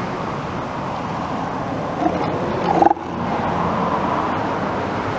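Young male northern elephant seals calling at each other, open-mouthed as they spar. The loudest call comes a little under three seconds in and cuts off abruptly.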